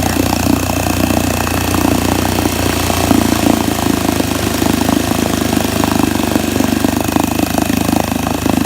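1964 Wards Sea King 3 hp two-stroke outboard motor idling steadily on its carburettor mixture knob.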